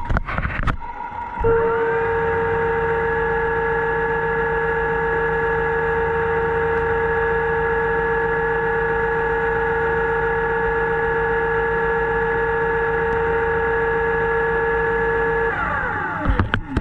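Electric motor of a diver propulsion vehicle (underwater scooter) whining steadily underwater. It spins up about a second and a half in and winds down, falling in pitch, near the end.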